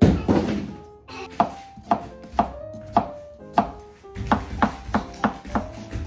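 Chef's knife chopping on a plastic cutting board, opening with a louder knock. A few single cuts about half a second apart follow, then quicker, steady chopping from about four seconds in as garlic cloves are minced.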